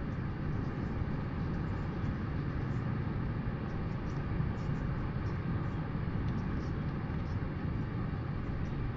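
Steady low wind noise buffeting the outdoor microphone of an albatross nest camera.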